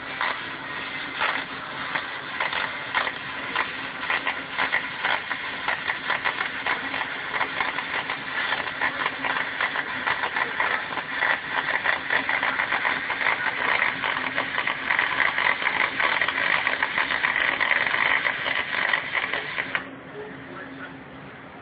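Aluminium MIG welding with a spool gun on a Lincoln Power MIG 350: a steady crackling hiss of the arc that cuts off suddenly near the end when the trigger is released.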